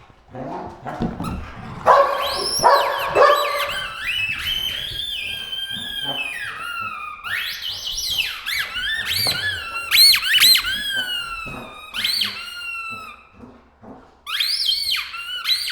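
Dog squeezing a squeaky toy in its jaws: a run of high squeals that slide up and down in pitch, one after another, with a short pause near the end.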